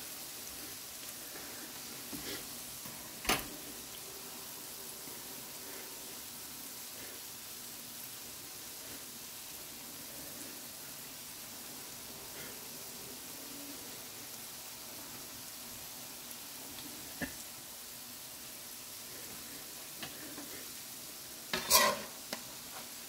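Fish balls and kikiam deep-frying in oil in a metal wok, a steady sizzle. A few sharp clinks of a metal ladle against the pan come about three seconds in and, loudest, as a quick cluster near the end.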